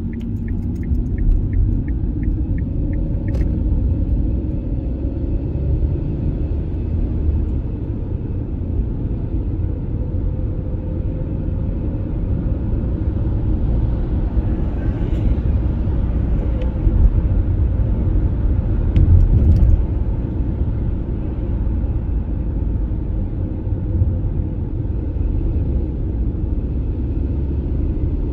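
Steady low rumble of a car's road and engine noise heard inside the cabin while driving. A light, evenly spaced ticking, the turn-signal indicator, runs during the turn through the intersection and stops about three seconds in with a sharper click.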